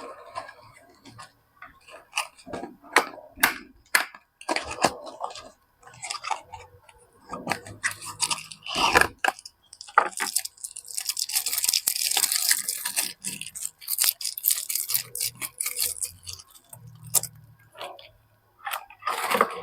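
Soap packaging being handled and unwrapped by hand: scattered taps and clicks, with a longer stretch of crinkling wrapper from about ten to sixteen seconds in.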